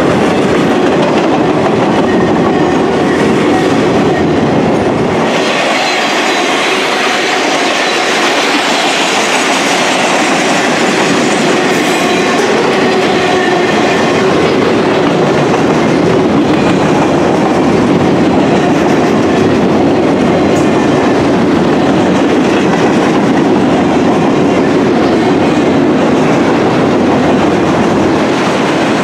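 Loaded flatcars of a freight work train rolling past close by: a steady, loud noise of steel wheels running on the rails. About five seconds in, the deep rumble drops away and a brighter, hissier rolling sound takes over.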